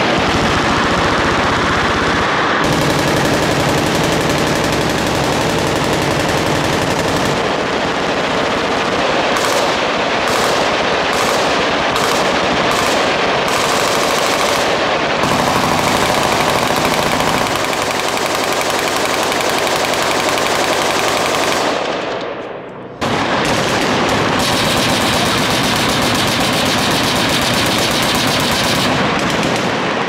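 Many machine guns firing at once along a firing line, a continuous dense rattle of automatic fire with a brief lull about 22 seconds in before it picks up again.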